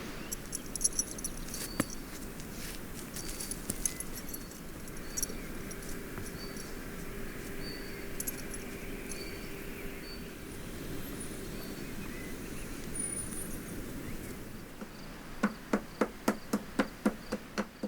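Outdoor ambience with faint high chirps and scattered ticks, then a run of quick, evenly spaced knocks, about three a second, near the end.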